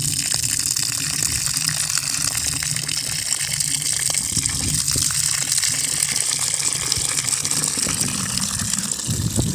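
Water gushing in a steady stream from an outdoor tap on a pipe, splashing onto bare, ash-covered soil.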